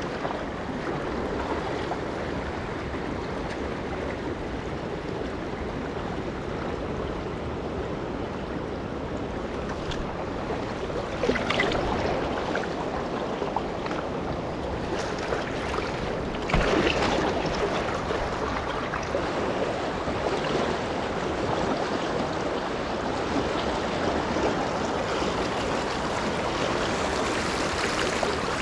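River water rushing steadily over a shallow riffle. The noise gets briefly louder twice, about 11 and 17 seconds in.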